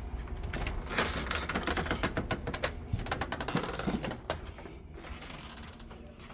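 Small hard objects rattling and clattering in quick succession for about three seconds, with a thin high metallic ring, then dying away.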